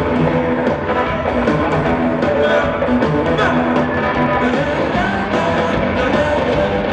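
Live blues-rock band playing loud and steady on drum kit, electric guitars and bass, heard from the arena seats.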